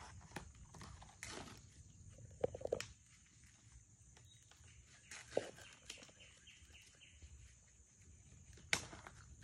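Quiet ambience of birds calling over a steady high insect hum, broken by a few sharp clicks and rustles of cardboard and bike parts being handled, the loudest about two and a half seconds in, about five seconds in, and near the end.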